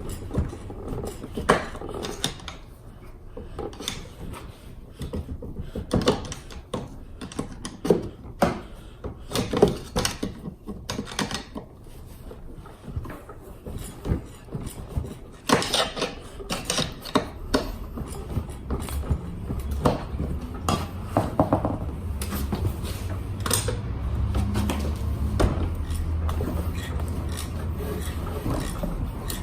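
Metal tools and scooter parts clinking, knocking and ratcheting in irregular hand work on a scooter's seized rear wheel. A steady low hum joins in about halfway through.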